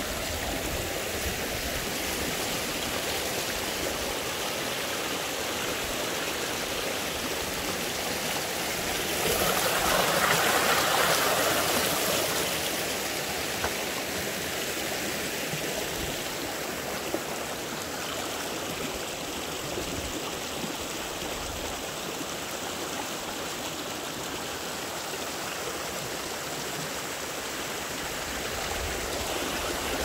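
Shallow rocky mountain stream flowing over stones, a steady rush of water that grows louder for a few seconds about a third of the way in.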